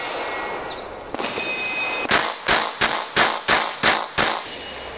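Rapid string of seven .40 S&W pistol shots from a Glock 22 in a CAA Micro Roni stabilizer, about three a second, starting about two seconds in. A high ringing follows each shot, typical of steel target plates being hit.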